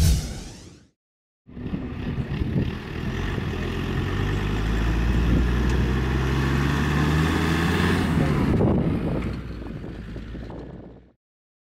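A brief decaying hit at the very start, then a Land Rover Defender safari truck's engine driving past on sand, with wind noise on the microphone; it is loudest around the middle, fades after about 8.5 seconds, and cuts off about a second before the end.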